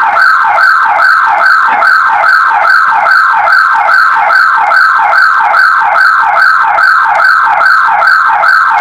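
Security alarm siren going off after an attempted break-in, a loud electronic wail falling in pitch over and over, about three sweeps a second, over a steady high tone.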